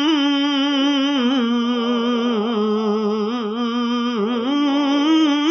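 Unaccompanied voice holding one long, wavering hummed or sung note of a naat. The note slides lower about a second in and climbs back up near the end.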